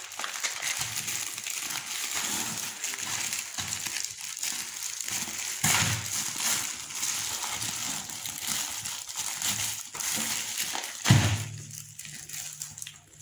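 Plastic courier mailer and bubble-wrap pouch being torn open and handled, with continuous crinkling and rustling of plastic. There is a sharp, louder crunch about eleven seconds in, and the handling is quieter after it.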